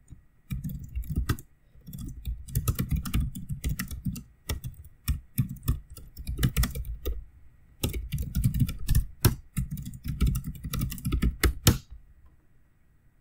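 Typing on a computer keyboard: quick runs of key clicks in several bursts with short pauses, stopping near the end.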